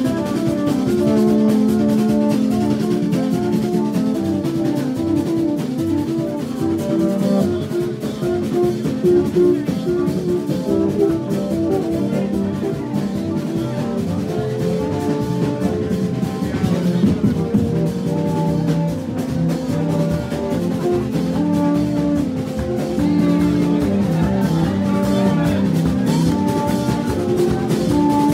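Haitian rara band playing live: vaksin tube trumpets, each blown on its own short note, interlock in a repeating riff over steady drumming.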